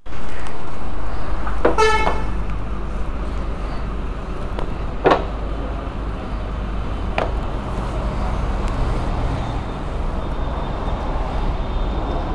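Road traffic with a steady low rumble and a vehicle horn honking once, for about half a second, about two seconds in. Two fainter, shorter sounds follow later.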